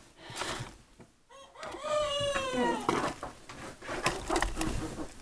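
A young rooster practising its crow: one crow about a second and a half long, starting about a second and a half in and dropping a little in pitch at the end. After it come a few light clicks of eggs being set into a plastic egg tray.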